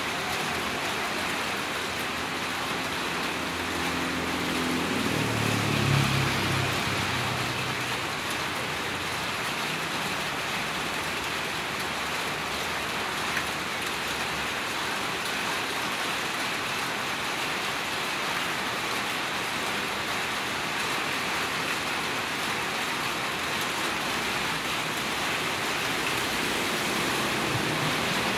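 Steady rain falling on the street and leaves, an even hiss. About five seconds in, a vehicle engine passes, growing louder to a peak and then fading.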